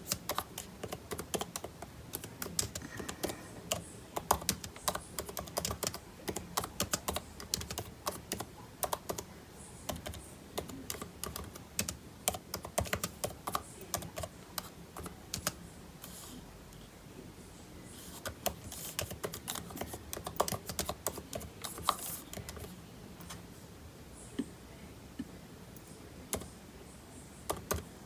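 Typing on a MacBook laptop keyboard: quick runs of key clicks for the first half or so, then slower, scattered keystrokes with one more short flurry about two-thirds of the way in.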